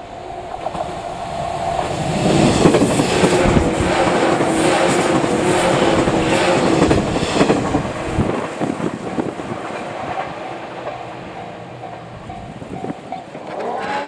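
A JR 185 series electric train passes close by at speed, its wheels clattering over the rail joints. It is loudest from about two to eight seconds in and then fades away. A level crossing warning bell rings in a steady repeating pattern at the start and again near the end.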